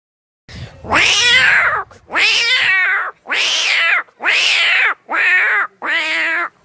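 A person's vocal imitation of fighting cats: six loud yowls, each rising then falling in pitch, about one a second.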